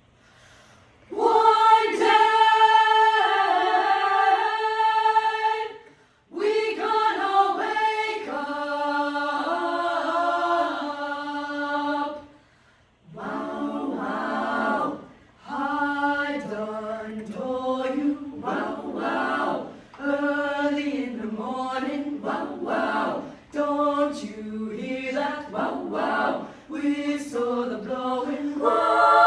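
Small vocal ensemble singing a cappella in close harmony, starting about a second in. Long held chords come first, then after a short break about twelve seconds in the phrases turn short and rhythmic with brief gaps.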